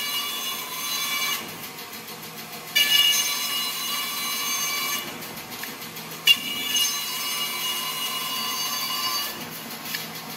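Biro 3334 meat band saw running with a steady hum while its blade cuts a wooden block in repeated passes. Each cut starts sharply with a high, ringing whine that lasts two or three seconds and fades: one dies away near the start, and new ones begin about 3 and 6 seconds in.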